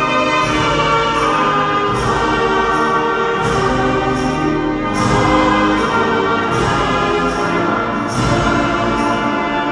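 A church hymn sung with instrumental accompaniment: held chords that change about every second and a half at a slow, steady pace.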